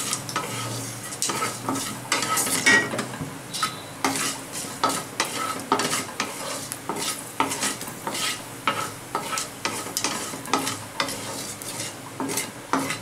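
Wooden spatula scraping and stirring around a wok in repeated strokes, with fenugreek, nigella and fennel seeds sizzling in hot oil.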